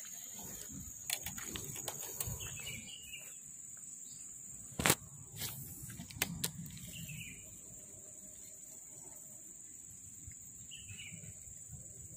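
Birds chirping a few times over a steady high insect drone. There are several sharp clicks from handling a spinning fishing reel and rod, the loudest about five seconds in.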